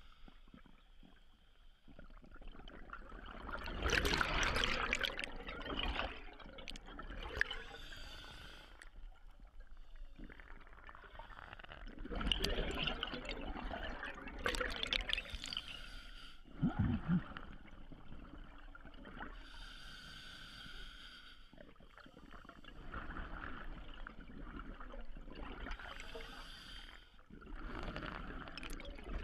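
Scuba diver breathing on a regulator underwater: a hissing inhale, then a long gurgling burst of exhaled bubbles, repeated about three times.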